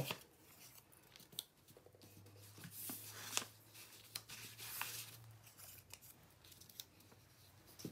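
Faint crafting sounds: soft rustles and a few light clicks of paper pieces being handled and pressed down as spots are glued onto a paper cow puppet.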